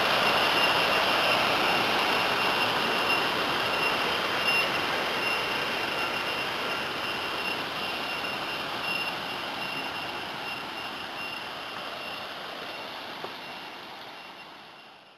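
Waterfall's falling water: a steady rushing noise that fades away gradually and then cuts off at the end.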